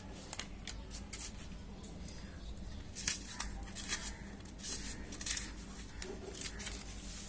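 A sheet of paper rustling and sliding on a table as hands shift and smooth it, in several short brushing scrapes.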